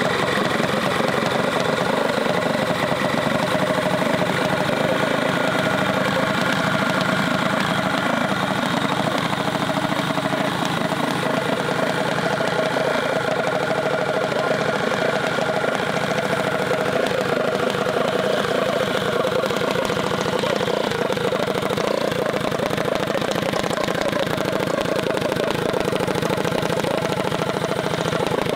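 Mini bike's built small engine idling at a steady pitch.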